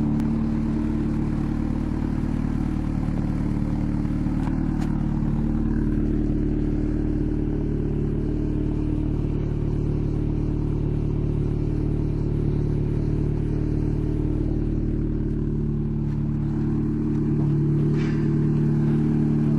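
Seat Leon Cupra's 2.0 TFSI turbocharged four-cylinder idling steadily through an exhaust with the rear silencer (backbox) removed, a deep, even drone. It gets a little louder near the end.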